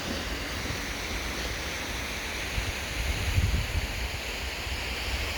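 Steady rush of a waterfall, with wind buffeting the microphone in irregular low gusts, strongest about three and a half seconds in.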